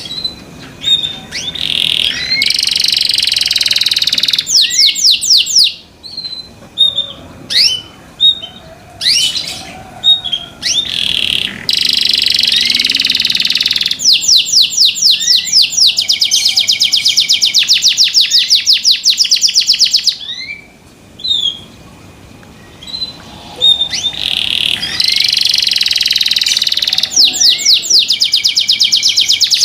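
Domestic canary singing loudly in long, high-pitched song phrases of fast trills and rapidly repeated notes, broken by short pauses filled with single chirps.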